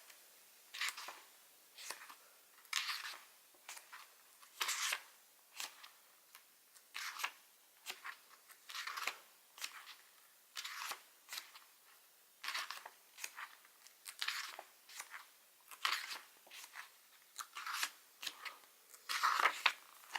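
Paper pages of a diary being flipped through quickly, one page turned after another: a short rustle of paper every second or so.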